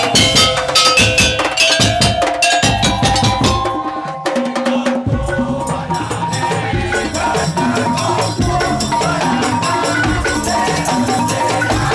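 Madurese daul (tong-tong) music: drums and wooden percussion beating a fast rhythm under pitched melodic instruments. The low drums drop out for about a second around four seconds in, then the beat comes back in.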